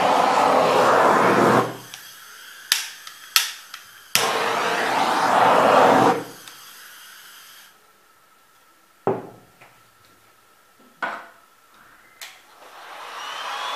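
A hair dryer blowing in two bursts of about two seconds each, one ending a couple of seconds in and the next starting about four seconds in. Sharp clicks fall between the bursts, and a few soft knocks follow in the quieter second half.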